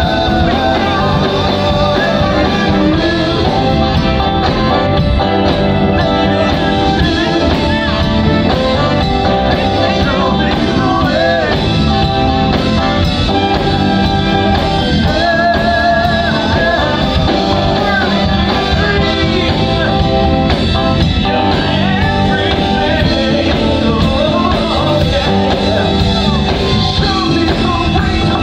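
A live band playing a song, with men singing lead and harmony vocals over electric bass guitar and drum kit.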